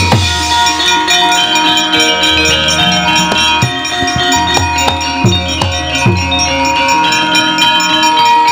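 Javanese gamelan playing: ringing bronze metallophones and gongs, hand-drum strokes that drop in pitch, and rapid sharp knocks of the kind a wayang puppeteer beats on the puppet chest and its keprak plates.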